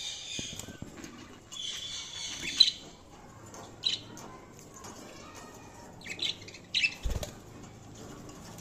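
Budgies chirping and warbling in short bursts, with a low thump about seven seconds in.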